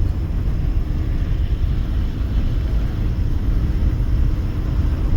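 Steady low rumble of road and tyre noise from a car driving at highway speed.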